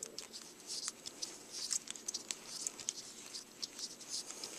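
Serving thread being wound onto a bowstring with a hand serving tool: repeated soft, hissy swishes of thread and hands rubbing past the string, with light clicks from the tool.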